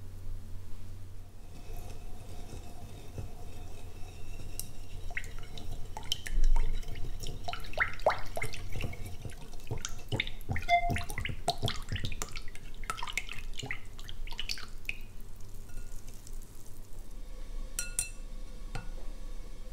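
Wire whisk beating milk, oil and vanilla in a glass bowl: rapid irregular splashing with the wires clicking against the glass, starting a few seconds in and stopping near the end. A few sharp metal-on-glass clicks follow as a mesh sieve is set on the bowl.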